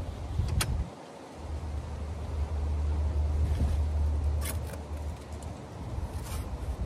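A steady low rumble that drops out briefly about a second in and swells in the middle, with a few sharp clicks and light rustles as foam sheets are handled and smoothed on a mattress.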